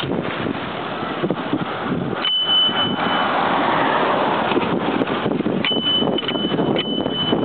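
Wind rushing over the microphone of a camera riding on a Bixi share bicycle, with knocks and rattles from the bike over the pavement. A thin, steady high squeal comes in about two seconds in for about a second, and again, broken a few times, from about five and a half seconds on.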